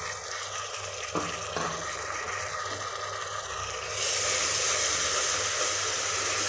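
Ginger-garlic paste and shallots sizzling in hot oil in a pressure cooker as a wooden spatula stirs them; the sizzle gets louder about four seconds in as the stirring spreads the paste. Two light knocks a little over a second in.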